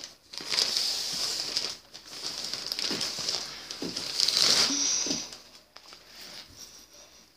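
Close rustling and scraping as hands and a plastic action figure are handled right against a phone's microphone, in two stretches that die away after about five seconds.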